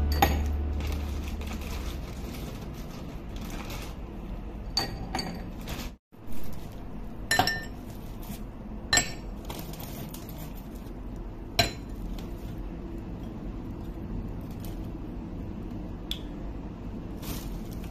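Ice cubes dropped one at a time into empty drinking glasses, each landing with a sharp clink against the glass. There are about eight clinks, spaced a second or more apart.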